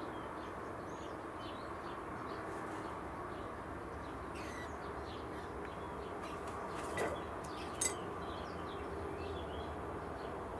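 Small birds chirping in the background over a steady outdoor hum, with two sharp knocks a little under a second apart about seven seconds in.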